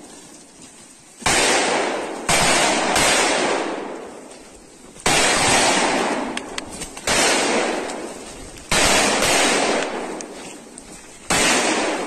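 Gunshots, about seven over the stretch at uneven spacing. Each is a sudden loud crack followed by a long echoing decay lasting a second or two, with a few faint sharp clicks between them.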